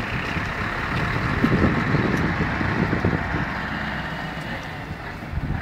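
Heavy diesel truck engines running steadily as a tow truck moves a Scania tipper truck.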